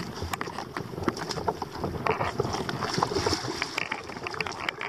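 Shallow seawater lapping and splashing close to the microphone, an irregular crackle of small splashes, with wind on the microphone.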